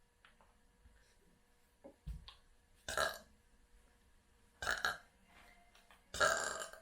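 A woman burping three times, about a second and a half apart, the last burp the longest and loudest.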